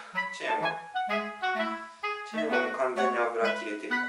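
Background music: a lively tune of short, quickly changing notes over a bouncing bass line.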